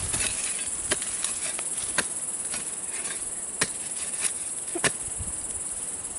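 A digging tool chopping into loose, sandy soil in several sharp strikes about a second or more apart. A steady high insect drone runs behind.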